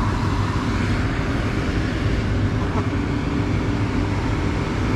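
A motor vehicle running steadily: an even engine hum mixed with road noise.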